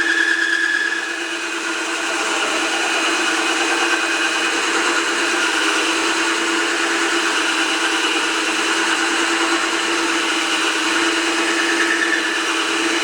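Power drill running a water-cooled diamond hole saw, grinding steadily into the workpiece as it cuts a hole, with a brief dip in loudness about a second in.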